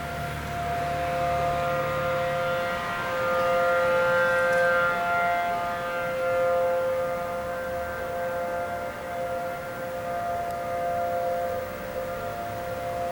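Outdoor tornado warning siren sounding a steady two-tone wail, its loudness swelling and fading every few seconds, signalling a tornado warning.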